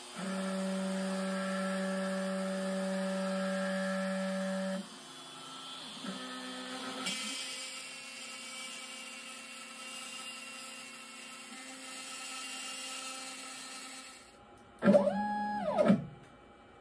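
DeWalt 611 compact router, working as the spindle of an X-Carve CNC, running and cutting wood with a 1/8-inch straight bit. There is a steady whine for about the first five seconds, then a quieter steady running sound. Near the end comes a brief loud whine that rises and then falls in pitch.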